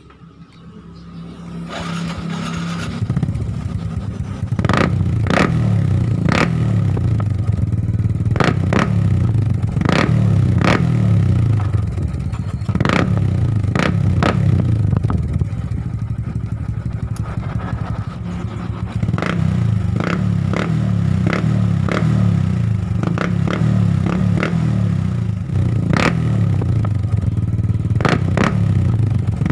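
Motorcycle engine running through an Apido aftermarket exhaust pipe packed with two steel wool pads. It is revved up and down repeatedly, with many sharp cracks from the exhaust. The steel wool packing gives the exhaust a crisper note.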